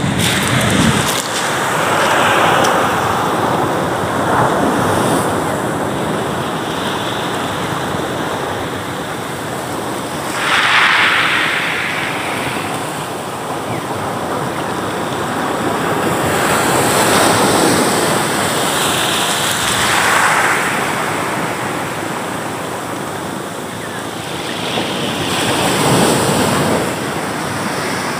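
Sea surf breaking and washing up over a pebble shore, a steady rushing hiss that swells several times as each wave comes in and washes up.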